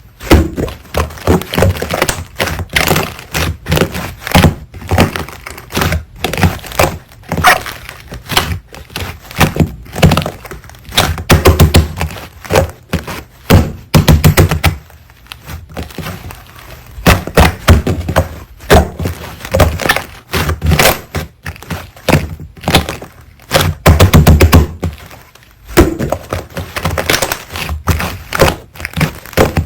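Slime being squeezed and poked by hand, making rapid clusters of crackles and pops with short pauses between handfuls.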